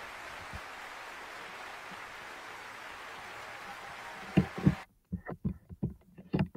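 Steady faint hiss of microphone background noise. About four and a half seconds in come two soft thumps; then the hiss cuts off and a quick, uneven run of sharp clicks and taps at the computer follows.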